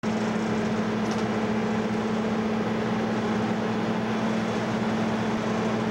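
A ship's engines running with a steady, unchanging hum under an even wash of wind and wake noise, heard from the stern deck while under way.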